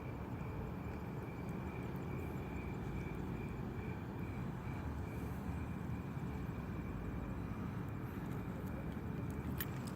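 Steady, even low rumble of outdoor background noise, with a faint steady high whine running through it.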